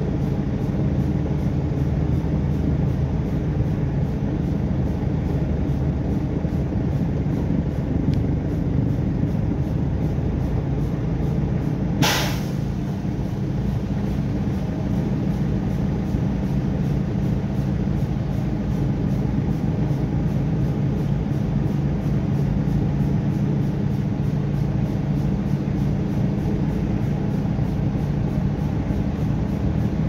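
Heavy truck's diesel engine running steadily at low speed, heard from inside the cab as a low drone. About twelve seconds in there is one short, sharp burst of hiss.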